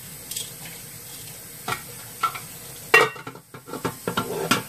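Kitchen handling noise: a few scattered light knocks and clicks over a faint hiss, with the loudest knock about three seconds in and a quick cluster near the end as the camera is gripped and moved.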